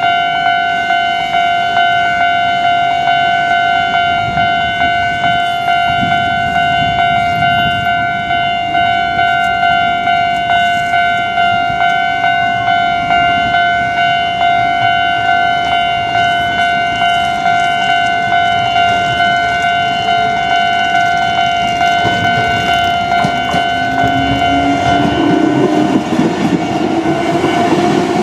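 Japanese railway level-crossing alarm ringing, an electronic bell repeating an even ding while the barriers are down. Near the end an approaching Kintetsu train comes in under it, its motor whine rising in pitch.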